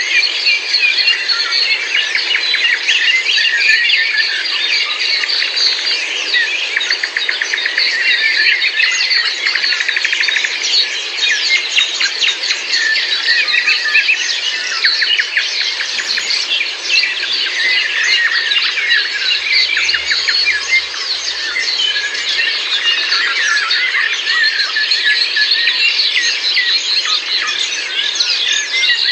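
Many birds singing and chirping at once, a dense chorus of overlapping short calls and trills that runs without a break.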